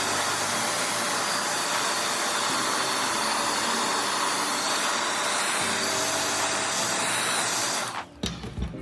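Steady blowing hiss of an air blower, with background music underneath. The hiss cuts off suddenly about eight seconds in and is followed by a couple of small clicks.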